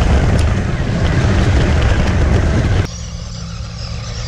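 Loud rumbling noise of a 1/12-scale RC truck driving over gravel, picked up by a camera riding on the truck. It cuts off abruptly a bit under three seconds in, giving way to a quieter, steady low hum with a faint hiss.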